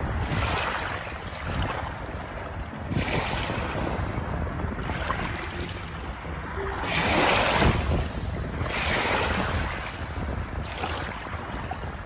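Small waves lapping over a shallow pebble shore, each wash swelling up and falling back about every three to four seconds, with wind rumbling on the microphone.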